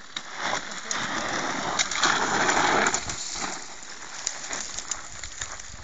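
Enduro motorcycle climbing a steep slope of crumbling tufa under hard throttle, its rear tyre spitting gravel and dust. The noise is loudest from about two to three seconds in, then eases to a lower hiss with scattered ticks of stones.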